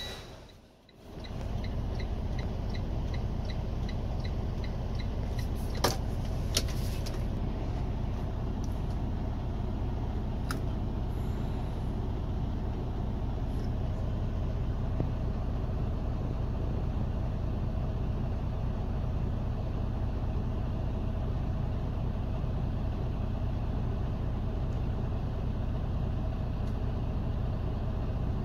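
Heavy-truck diesel engine idling steadily at low rpm, heard inside the cab. Its rpm does not rise for the requested parked regeneration, which is not starting. A faint repeating dashboard beep dies away in the first few seconds, and there are a couple of clicks about six seconds in.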